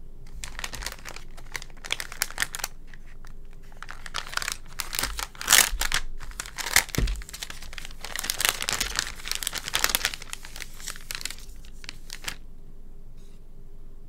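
Clear plastic packaging bag crinkling and rustling as a coiled cable is handled and pulled out of it, in irregular crackles that are loudest a little past the middle and stop near the end.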